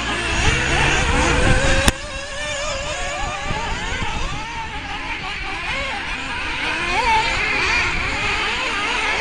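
Several radio-controlled racing buggies running together, their small motors whining and rising and falling in pitch as they accelerate and slow for corners. A sharp click about two seconds in, after which a low rumble drops away.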